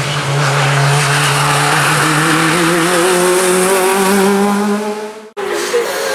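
Hill-climb race car engine running hard at high revs as the car drives past, its pitch wavering and climbing slowly under acceleration. About five seconds in, the sound breaks off abruptly and a different engine sound carries on.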